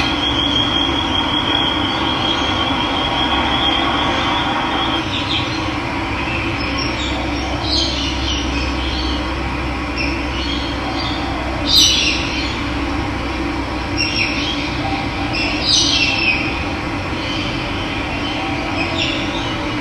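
Running water, a steady continuous noise, with birds calling over it. A high trill holds for the first five seconds, then come short calls, the loudest about twelve and sixteen seconds in.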